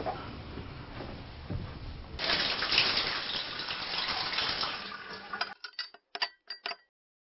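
Shower head spraying water: a loud, even hiss of running water starts suddenly about two seconds in, then breaks into a few short chopped bursts and cuts off near the end.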